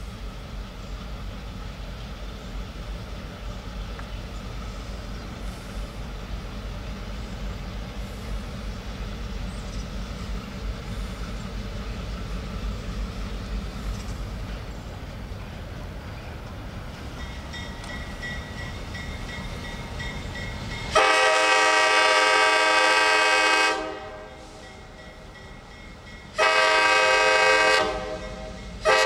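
Low rumble of approaching EMD FP7 diesel locomotives, then about two-thirds of the way through the lead unit's air horn sounds: two long blasts and a short one, the opening of the long-long-short-long grade-crossing signal.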